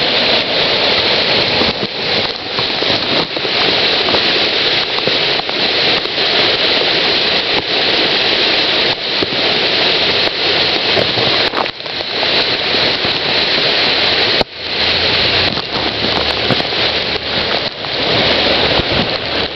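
Floodwater of a swollen creek rushing, loud and steady, with a brief sudden break about two-thirds of the way through.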